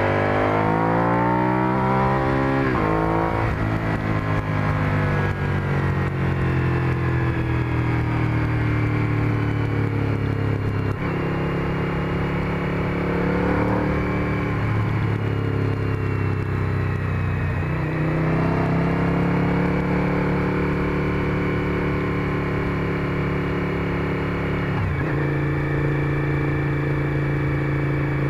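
Suzuki SV1000's 996 cc V-twin engine running under way. It revs up steeply over the first few seconds and breaks off about three seconds in, as at a gear change. The engine note then holds steady, easing and picking up again with several more sudden changes in engine speed.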